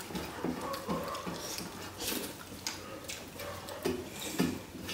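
Eating sounds of a meal of rice and dal: irregular small clicks and taps of food and dishes on plates.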